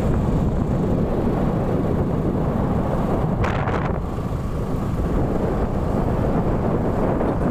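Wind rumbling on the microphone of a moving motorcycle, mixed with engine and road noise. A short hiss comes about three and a half seconds in.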